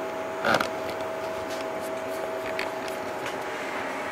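Chauvet Q-Spot 260 LED moving-head light running its power-on homing cycle, a steady mechanical hum with a constant pitched whine as its motors and fan recalibrate. A short louder knock comes about half a second in, with a few faint ticks later.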